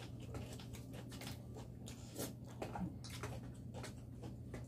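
Soft crinkling and small crackles of fresh lettuce leaves being handled and folded into a wrap, over a steady low hum.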